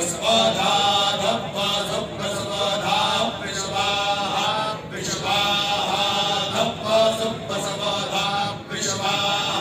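Vedic mantras chanted in unison by a group of men, led by one voice on a microphone, in a continuous run of short pitched phrases.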